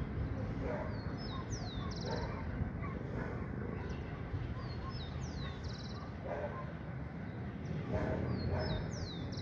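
A small songbird repeats the same short song three times, about every three and a half seconds: a few thin notes, a sweeping slur and a quick trill. A dog barks now and then in the distance, over a steady low rumble.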